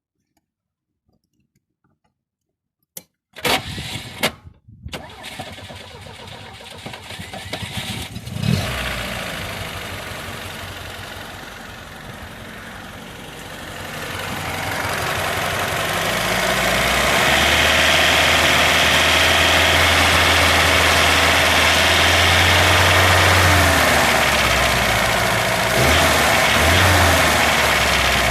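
A classic Lada's four-cylinder engine is cranked and starts about 3 to 5 seconds in, then idles. From about 14 seconds it is brought up to a steady higher speed, then let back down and blipped twice near the end. The engine is carrying an extraneous noise from the cylinder head that the owner cannot trace, even though the timing gear, camshaft, rockers and valve adjusters are all new.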